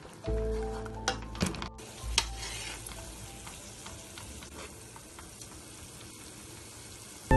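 Chicken pieces sizzling in a frying pan after a splash of water. A few sharp clicks of a utensil against the pan come in the first couple of seconds.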